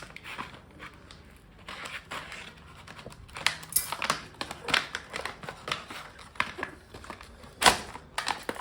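Handling noises from a new multimeter and its packaging: irregular crinkles and clicks, with one louder knock near the end.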